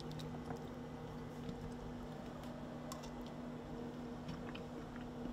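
Faint scattered clicks and mouth sounds of someone tasting a spoonful of fish tartare, over a steady low hum.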